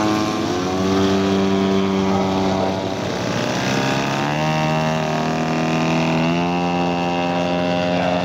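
Engines of large-scale radio-controlled WW2 warbird models running as the models taxi, a steady propeller-engine drone whose pitch rises and falls several times with the throttle, more than one engine heard at once.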